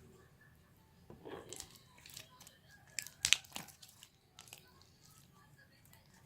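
Slime being squeezed and stretched by hand, giving a run of crackling clicks and small pops, loudest a little past three seconds in.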